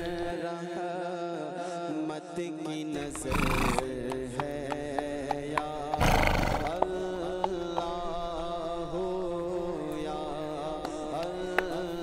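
Background music with a held, wavering melody over light, regular percussion. Twice, about three and a half and six seconds in, a horse gives a short, noisy snort.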